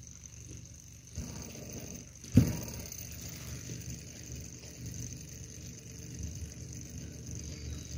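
Small Stirling engine running quietly with a faint, steady mechanical whirr. There is a click a little over a second in and a louder knock about two and a half seconds in.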